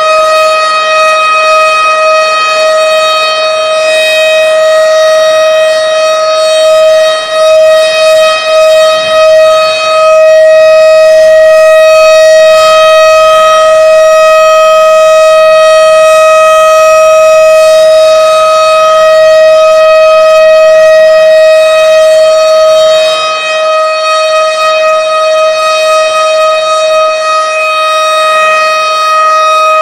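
Several tornado warning sirens sounding together in a loud, steady wail held at one pitch. The loudness wavers briefly about a quarter of the way in.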